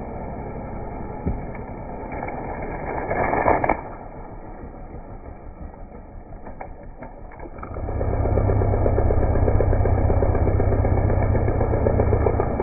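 Gas-powered two-stroke saw engine running, with a short rev about three seconds in. About eight seconds in it rises to a loud, steady full-throttle run.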